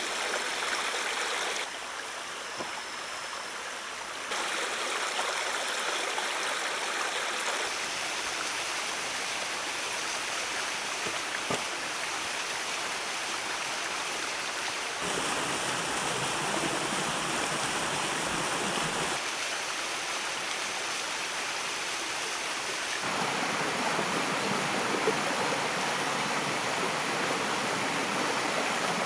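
River water rushing and flowing over stones: a steady rush that jumps in level and tone several times.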